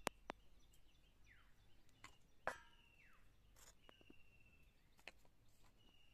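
A metal spoon clinks a few times against a steel mixing bowl and clay bowls while spices are scooped and tipped in; the loudest clink, about halfway through, rings briefly. Faintly behind it a bird calls over and over, a held high note followed by a falling one.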